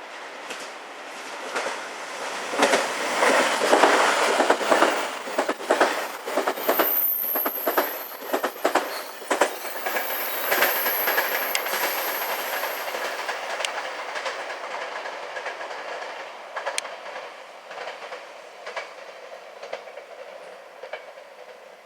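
JR-West 283 series electric limited express train passing at speed, its wheels clicking in quick clusters over the rail joints. It grows loud a few seconds in, stays loud for several seconds, then fades away over the second half.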